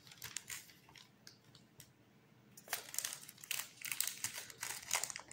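Plastic packaging crinkling as it is handled: a run of short crisp rustles from about halfway through. Before that there are only faint light ticks.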